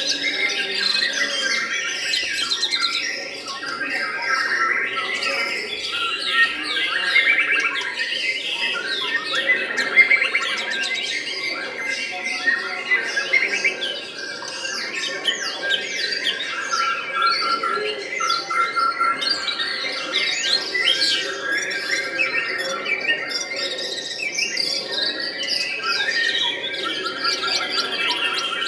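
White-rumped shama (murai batu) singing a long, continuous song of rapid, varied whistles, chatter and trills.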